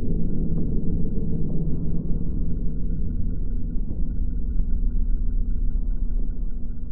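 A surf rock recording slowed to a tiny fraction of its speed, heard as a deep, steady rumbling drone with long-held low tones.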